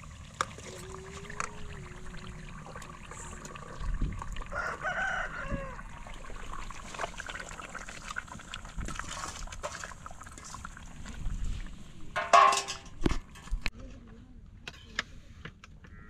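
Chickens calling in a farmyard, with a long, bending crow-like call partway through and a shorter, louder call near the end, among scattered sharp clicks and knocks.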